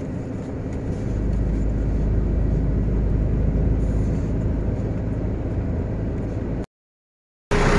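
Heavy truck's engine and tyre noise heard from inside the cab while driving at road speed: a steady low drone that grows louder about a second in. The sound cuts out abruptly to silence near the end.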